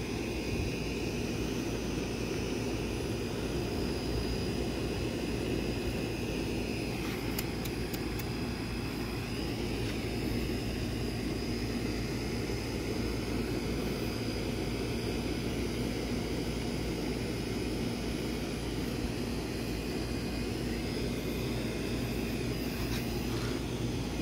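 A steady low mechanical drone with a faint high whine held on one pitch, unbroken throughout.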